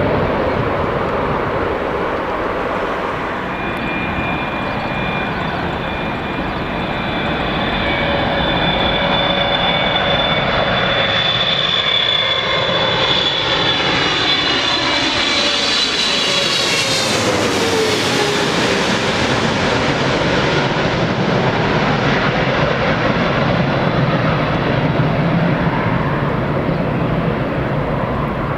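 Jet airliner passing close on its landing approach. Its engine whine slides down in pitch as it goes by, about two-thirds of the way through, then gives way to a low rumble.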